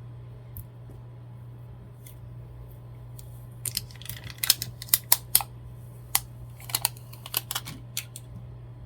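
Handling sounds from applying a vinyl label with transfer tape to a glass jar: a run of sharp clicks and crackles starting about four seconds in and thinning out near the end, over a steady low hum.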